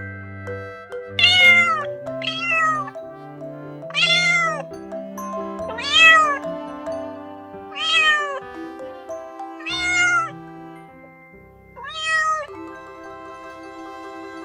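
Domestic cat meowing seven times, mostly about two seconds apart, each meow rising then falling in pitch, over background music.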